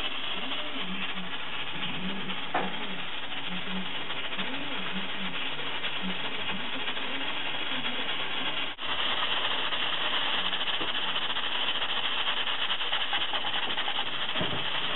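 Pressure cooker on a gas burner with a steady hiss of steam from its valve. It breaks off briefly about nine seconds in and comes back louder and brighter.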